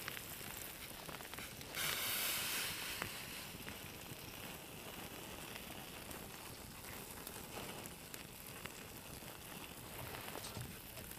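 Pork belly and steak sizzling as they fry, a steady hiss with scattered faint crackles. The sizzle surges briefly about two seconds in.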